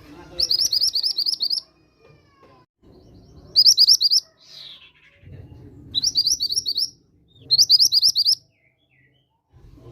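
Mantenan gunung song: four bursts of rapid, repeated high chirping notes, each about a second long, spaced a second or two apart, with a low rumble between them. It is the lure song meant to provoke other mantenan birds into answering.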